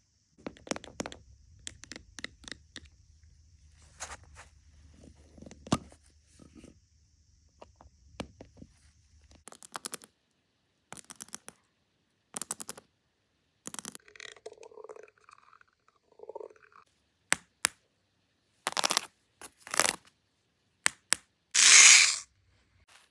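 A fidget board being handled: a string of separate clicks, taps and short scrapes as its pieces are worked, with a louder, longer rasping rip near the end.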